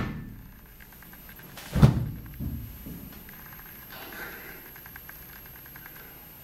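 A heavy, low thud about two seconds in, followed by a smaller knock: a person dropping down onto the floor. A sharper knock sounds right at the start.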